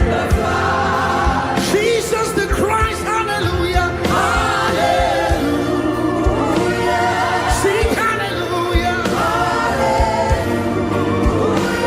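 Live gospel worship music: voices singing over a band with sustained keyboard chords and a steady kick-drum beat.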